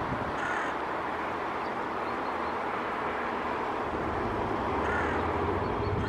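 Hooded crow giving two short caws, about half a second in and again near the end, over a steady background rush.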